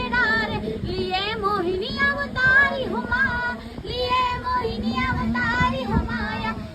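A young girl's high voice singing a Chhattisgarhi jas geet devotional song, with a wavering, ornamented melody. A steady low drone sounds underneath in the second half.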